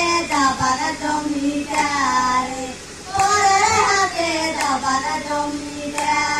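A girl singing a song into a microphone, in phrases of long held notes, with a short breath break about three seconds in.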